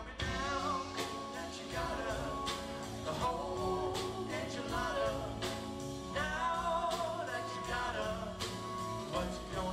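A band playing a song: a singer's voice over bass and drums.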